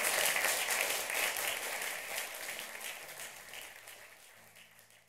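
Audience applauding, fading out steadily to silence by the end.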